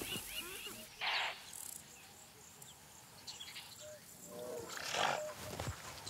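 Faint wildlife ambience with a few short animal calls: a brief noisy burst about a second in and another cluster of calls about five seconds in.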